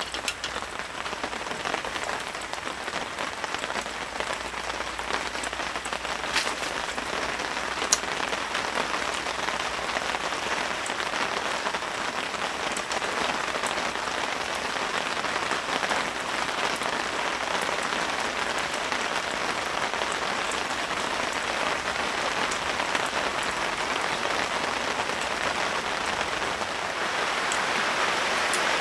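Steady rain falling on the tent canopy overhead, with a few sharper single drops. The rain grows a little louder near the end.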